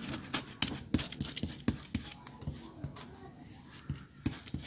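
Glue being spread onto leather with a small applicator: irregular quick scratchy scraping and dabbing strokes.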